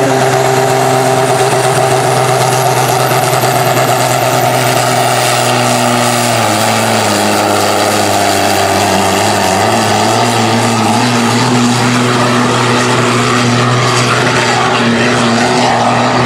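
Turbocharged diesel pulling tractor running flat out while dragging a weight-transfer sled. The steady, loud engine note drops in pitch about six seconds in as the sled's load builds, with a thin high whine rising over the first few seconds.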